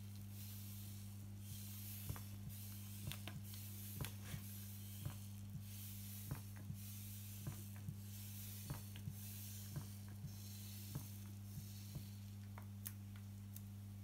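Chocolate pancake batter squeezed from a plastic squeeze bottle onto a hot griddle, with small irregular ticks and crackles about every half second and a faint hiss, over a steady low hum.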